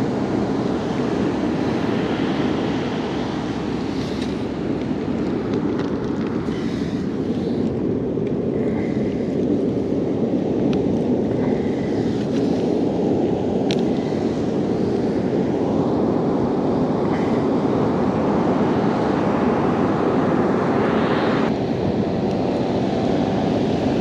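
Steady low rush of wind buffeting the microphone, with ocean surf behind it. A few faint clicks and rustles come from a plastic bait bag and wire crab snares being handled.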